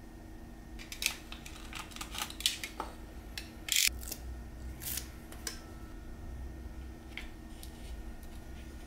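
Double-sided tape and thin hardwood strips being handled: a run of light clicks and crinkles from about a second in, with a short rip as the tape's backing liner is peeled off just before the halfway point. A few soft clicks follow as the wooden strips are set together.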